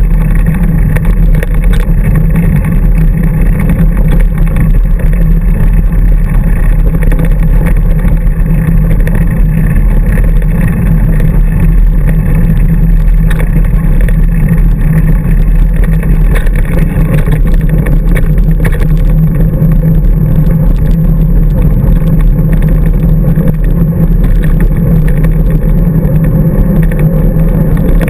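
Wind buffeting the microphone of a handlebar-mounted camera on a 29er mountain bike speeding downhill on a dirt trail, with tyre and frame rattle: a loud, steady low rumble.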